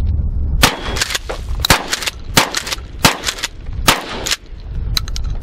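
A New Haven Model 600 AT 12-gauge pump-action shotgun (a Mossberg 500 type) with a cut-down barrel is fired several times in quick succession, with the pump worked between shots. It is being test-fired with a newly fitted ejector, which now throws the spent shells out properly.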